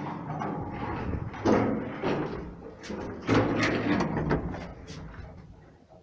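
An old passenger lift clunking, clicking and rattling as its doors are worked, with louder clunks about a second and a half and three seconds in, fading towards the end.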